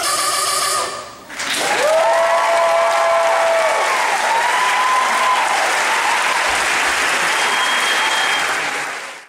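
Dance music ends about a second in, and an audience applauds and cheers, with long high-pitched whoops held over the clapping; the sound stops abruptly near the end.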